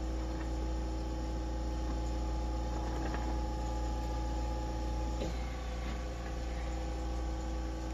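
Steady low electrical hum with a few fixed higher tones, and faint light taps about three and five seconds in.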